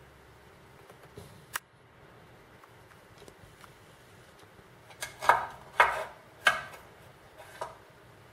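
A pitted, ground-dug aluminium flask cup knocked against a hard surface while being handled: three sharp metallic knocks, each with a short ring, then a fainter fourth. A single sharp click comes a few seconds before them.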